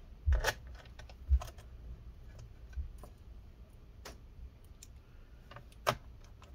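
Scattered sharp clicks and taps of a small screwdriver and screws on a laptop's plastic bottom cover as the last screws are driven back in. The loudest clicks come about half a second in, around a second and a half in, and again near six seconds.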